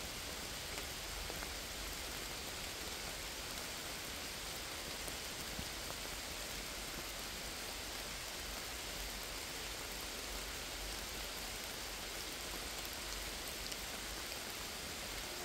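Steady rain falling on the leaves and leaf-litter floor of a forest, an even hiss with the odd single drop standing out.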